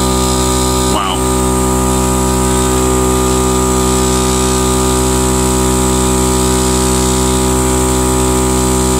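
Smitty Built portable air compressor running steadily under load with its muffler fitted, pumping air through the hose into a car tire: a loud, even hum with several steady tones.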